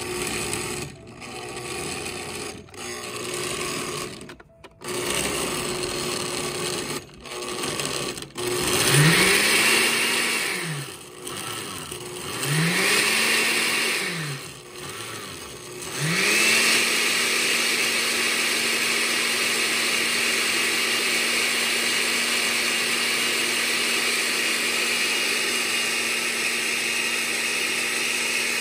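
A few clicks and knocks, then an electric blender motor pulsed twice in short bursts, each rising and falling in pitch, before it spins up about two-thirds of the way in and runs steadily, blending soaked dried chilies with some of their soaking water.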